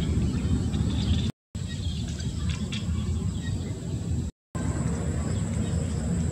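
Rural outdoor ambience: a steady low rumble under a thin, steady high whine, with a few bird chirps in the first second. The sound cuts out briefly twice.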